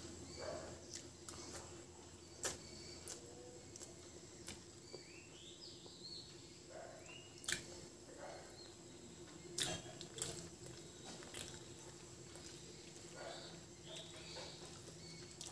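Quiet hand-eating sounds: fingers mixing rice on a paper plate, soft chewing and lip smacks, with scattered small clicks over a faint steady hum.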